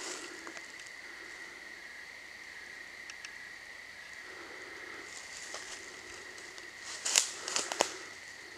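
Night forest ambience: a steady high insect trill, typical of crickets. About seven seconds in, a few sharp crackles, like steps or twigs on dry leaf litter.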